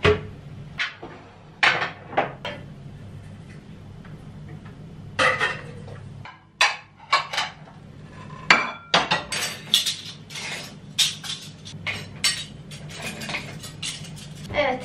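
Dishes, glasses and cutlery clinking and knocking as they are handled, with the clinks coming thick and fast in the second half. A low steady hum runs under the first half.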